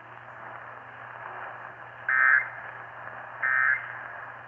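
Weather radio hissing on an open channel, then two short, loud data-burst warbles about a second and a half apart. These are the SAME digital end-of-message codes that close a National Weather Service tornado warning broadcast.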